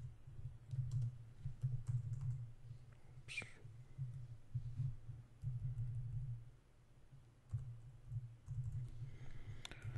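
Computer keyboard typing: scattered key clicks in short runs, over a low hum.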